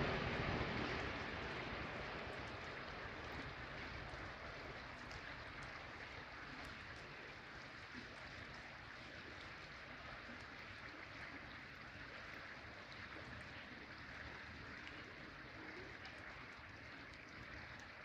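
Small river flowing and rippling past a log and stones, a steady soft rushing of water that eases down over the first few seconds and then holds level.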